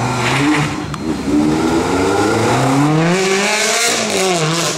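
Yellow Ferrari's mid-mounted V8 accelerating hard. The engine note climbs through the revs, dips briefly at a gearshift about a second in, then climbs again. It peaks as the car passes close and falls in pitch near the end.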